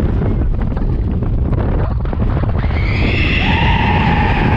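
Steel roller coaster train rushing along the track, with a heavy rumble and wind buffeting on the microphone. About two and a half seconds in, high-pitched screaming starts and holds for a couple of seconds as the train runs through a tunnel.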